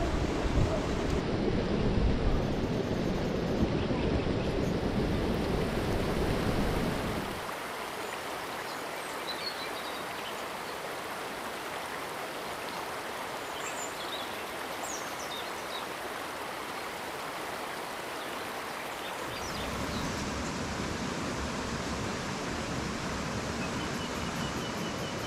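Steady rushing, hissing noise, with a low wind rumble on the microphone for the first seven seconds and again near the end.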